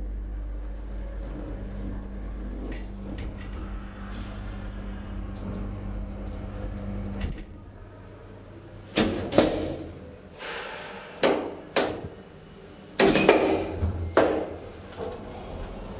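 DEVE hydraulic elevator's drive humming steadily as the car travels, cutting off about seven seconds in as the car stops. The elevator doors then open and close with a series of loud clattering knocks.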